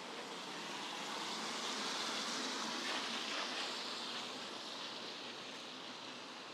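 A passing vehicle: a rushing noise that swells over about three seconds and then slowly fades.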